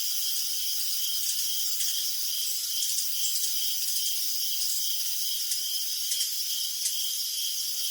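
Crickets chirping at night: a steady high chorus of insect trills, with one nearer cricket's chirps repeating about twice a second.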